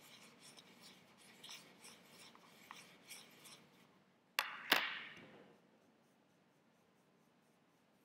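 Paintbrush bristles scraping and dabbing in a plastic palette well while mixing paint, faint and scratchy. About four and a half seconds in come two sharp knocks close together, the second louder with a short ring, as the plastic palette is set down on the table.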